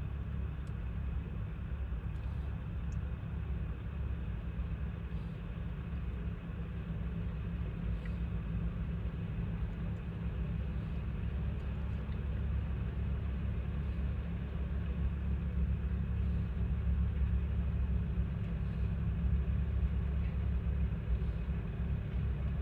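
Snow-removal truck engines rumbling steadily, slowly growing louder toward the end.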